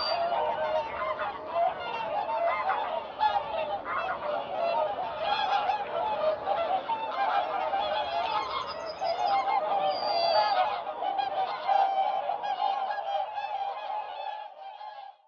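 A large flock of whooper swans calling, a dense chorus of overlapping honking, bugling calls that fades out near the end.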